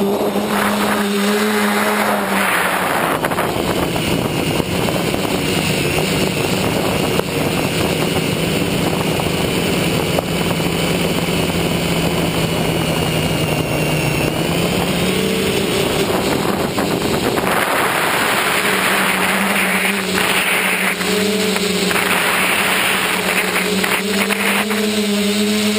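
Motor and propeller of a radio-controlled model aircraft, heard from its onboard camera, running as a steady drone. The motor's pitch dips slightly for a while and comes back, under loud rushing wind noise that swells and fades.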